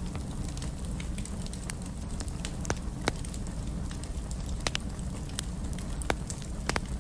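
Wood fire burning in a fireplace: a steady low rumble of the flames with irregular sharp crackles and pops, a few louder pops scattered through.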